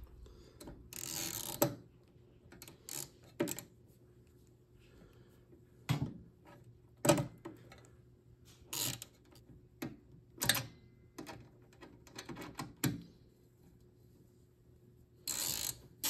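Irregular metallic clicks and short scrapes of a ratchet and long extension working the magnetron's mounting screws inside a microwave's sheet-metal chassis, with a longer scrape about a second in.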